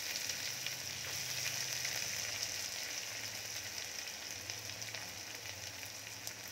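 Freshly added chopped onions sizzling in hot oil with whole spices in a pressure cooker: a steady frying hiss with fine crackles, slowly easing off as the onions settle into the oil.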